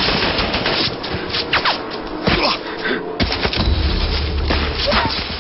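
War-film battle sounds: rapid gunfire with short whistling glides, and a heavy low explosion boom starting about three seconds in.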